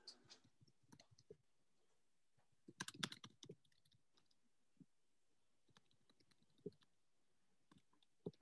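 Near silence with faint, scattered clicks of a computer keyboard and mouse, with a short flurry of clicks about three seconds in.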